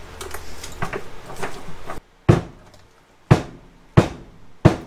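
Heavy thumps as the LiFePO4 battery's plastic case is knocked against a wooden workbench to shake the glued-in cell pack loose: four sharp knocks in the second half, less than a second apart, after a couple of seconds of light handling clicks.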